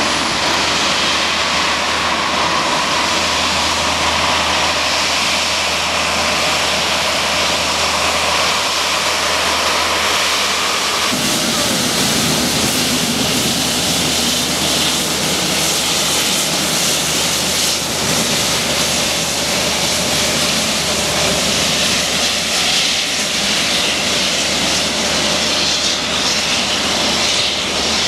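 Airbus A350-900's Rolls-Royce Trent XWB turbofan engines running at low taxi thrust as the airliner rolls past: a steady jet whine over a rush of engine noise. The sound changes abruptly about eleven seconds in.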